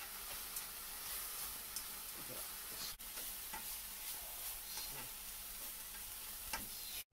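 Julienned burdock root and carrot sizzling as they are stir-fried in a wok, with a steady hiss and scattered light clicks as chopsticks toss them against the pan.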